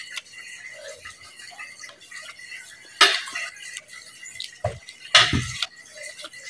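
Fork and spoon clinking and scraping against a bowl of ramen while eating, with short, sharper noises about three seconds in and twice near five seconds.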